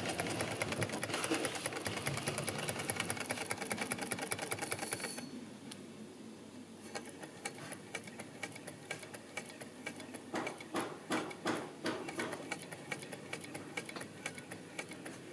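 A 1922 James Carter hot air (Stirling-type) engine running at speed, its crank and connecting rods making a rapid, even ticking clatter. About five seconds in the clatter becomes quieter and carries on.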